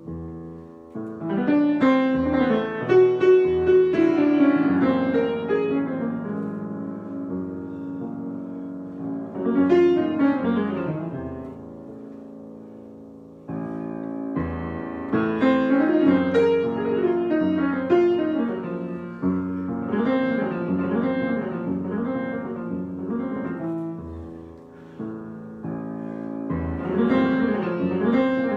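Solo piano improvisation: phrases of chords and running notes that swell into louder passages and fall back, with notes left ringing in the quieter stretches.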